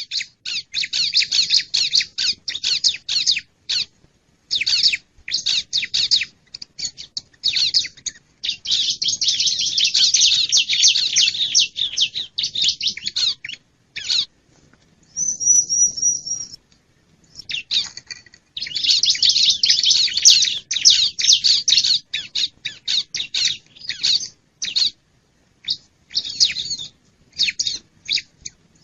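Bar-winged prinia (ciblek) giving rapid, harsh chattering calls in bursts with short pauses: a lure recording used to draw in wild prinias. About fifteen seconds in, a brief high wavering note breaks the chatter.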